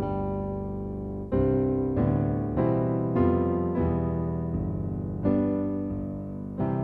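Background piano music: notes and chords struck one after another, each ringing and fading away.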